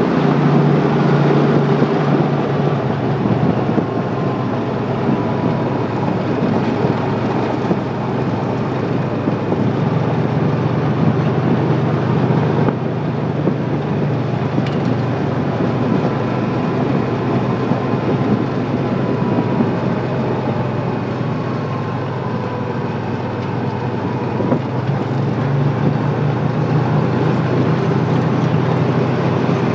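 Vehicle driving along an unpaved forest road, heard from inside the cab: steady engine hum and tyre and road noise, with a faint steady whine.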